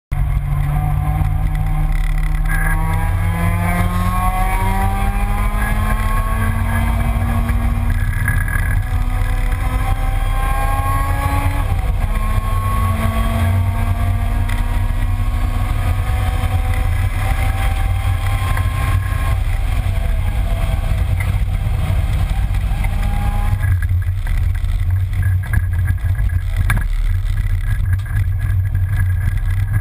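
Car engine heard from inside the cabin under sustained acceleration, its note slowly rising, dropping once at a gearshift about midway, then rising again. Near the end the engine note falls away, leaving a heavy low road and wind rumble.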